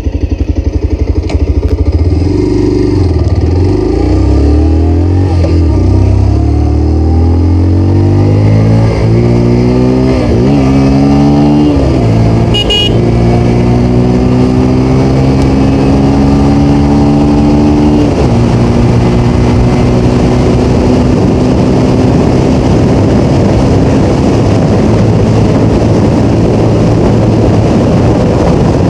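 Bajaj Pulsar 125's single-cylinder engine accelerating hard from a standstill through the gears, its pitch climbing and dropping back at each upshift. From about two-thirds of the way in it holds a steady high-speed drone in top gear.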